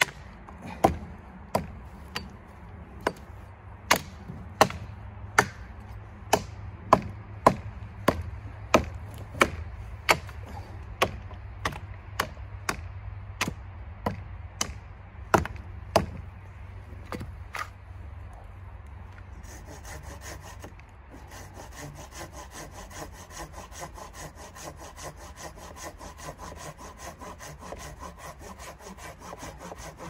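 Hatchet chopping into the branches and trunk of a felled pine, about three sharp blows every two seconds, stopping after about seventeen seconds. A couple of seconds later a hand saw starts cutting the wood with quick, steady strokes.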